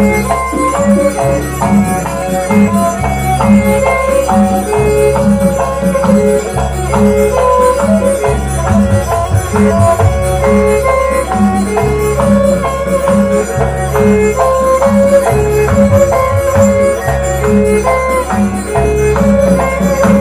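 Traditional Banyuwangi dance music: a repeating low percussion pattern with a jingling, rattle-like beat under a steady melody.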